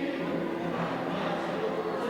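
Many voices sounding together at once.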